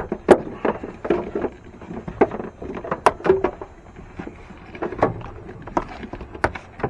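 Irregular knocks, taps and scraping as a taped power cable is pushed and fed down under parts in a pickup truck's engine bay.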